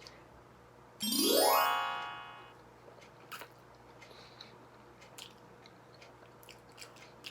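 A quick rising run of tones about a second in, an edited-in sound effect, followed by soft, scattered chewing clicks of someone eating takoyaki.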